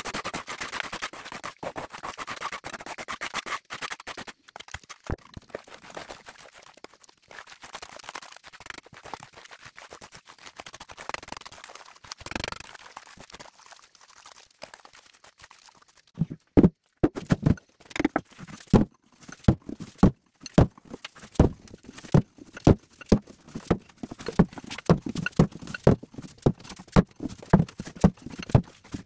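A shovel scraping through wet mud, then from about halfway a steady run of sharp knocks of a hand tool striking a stone wall, about two a second.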